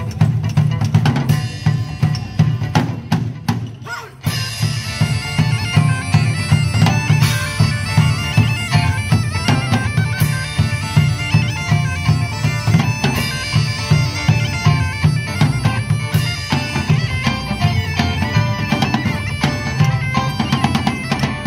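Live medieval-style folk band playing: bagpipes carry a tune over their drone while drums beat a steady rhythm. The music breaks off briefly about four seconds in, then goes on.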